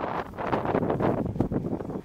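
Strong wind buffeting the microphone in uneven gusts, a rough rumbling noise.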